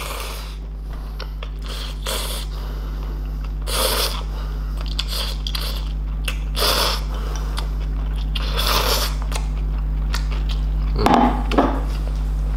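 A person slurping and chewing instant noodles, with several short loud slurps a second or two apart, over a steady low hum.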